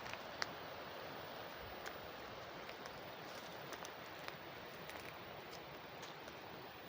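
Steady rush of water flowing along an irrigation channel, with a few light ticks and crunches of footsteps on the path.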